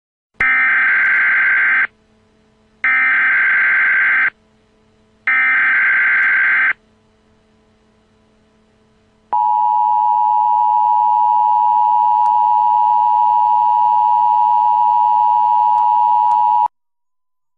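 Emergency Alert System tones opening a tornado warning: three short buzzy bursts of the SAME digital header, each about a second and a half long, then after a pause a steady two-tone attention signal held for about seven seconds. A faint low hum runs underneath.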